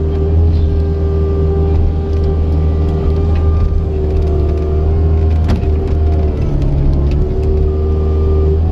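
Cat 279C compact track loader's diesel engine running steadily under load, with a steady whine over it that dips slightly in pitch now and then. A single sharp click about halfway through.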